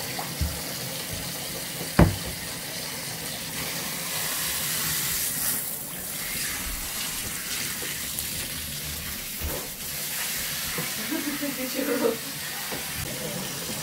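Tap water running steadily into a bath, with one sharp knock about two seconds in.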